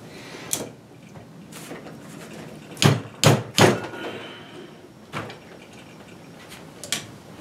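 Side cutters clicking and knocking against a master cylinder body and a deck screw as an old brass tube seat is levered out of its port, metal on metal. Scattered sharp clicks, with three knocks close together about three seconds in.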